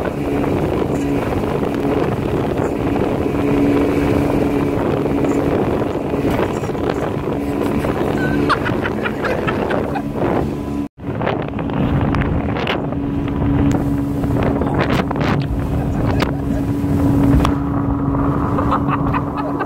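Outboard motor of a small speedboat running steadily at speed, with wind buffeting the microphone and water rushing past the hull. The sound cuts out for an instant about halfway through.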